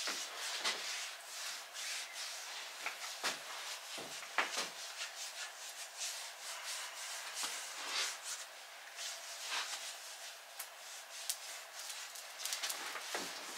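Silicone brush rubbing oil across a hot cast iron stove top in repeated short, irregular strokes, seasoning the surface.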